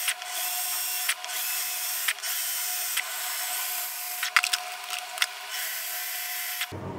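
Cordless drill running as it bores holes through a PVC part held in a vise, a steady high-pitched whir with short breaks about once a second. It cuts off shortly before the end.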